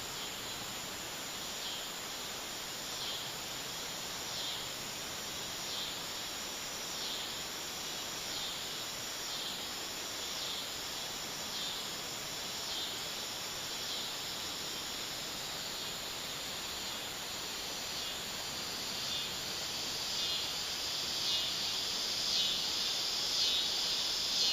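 Insects chorusing: a steady high buzzing that swells and fades about once every second and a half, growing louder near the end.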